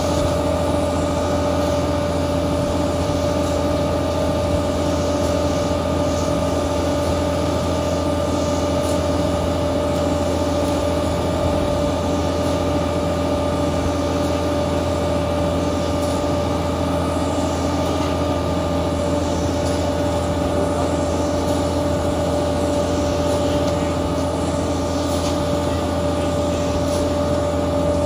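Concrete mixer truck's diesel engine running steadily, an unchanging drone with a constant pitch.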